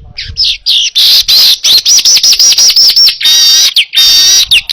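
Manyar weaver bird singing loudly in a fast, continuous song: a rapid run of repeated down-slurred high whistled notes, then buzzy, rattling trills in the second half.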